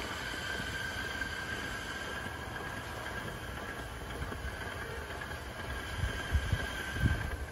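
Steady hiss with a thin, even whistling tone from the 5-inch gauge Neilson GER Y5 'Coffee Pot' live-steam locomotive in steam on test, with a few low thumps near the end.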